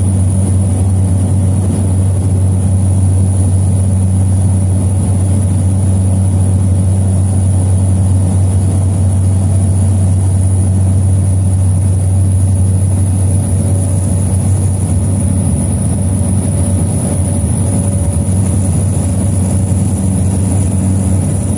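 Loud, steady drone of a small Susi Air turboprop's engine and propeller running at constant power, with a constant high whine above it.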